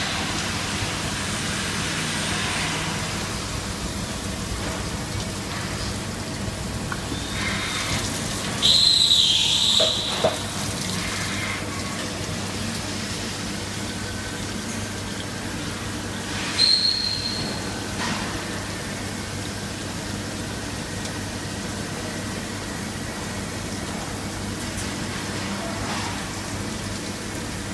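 Spherical turning lathe running with a steady hum and hiss. A loud high squeal comes about nine seconds in and lasts about a second and a half, with a short knock just after; a shorter high squeal comes near seventeen seconds in.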